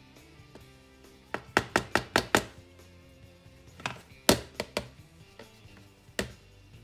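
Sharp plastic knocks and taps from a tub of avocado ice cream mixture and its spatula being handled on a stone counter. About six come in quick succession, a few more follow a couple of seconds later, and one comes near the end. Soft background music plays underneath.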